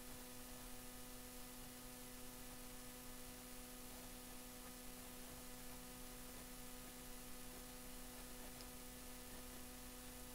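Faint, steady electrical mains hum with a low hiss underneath.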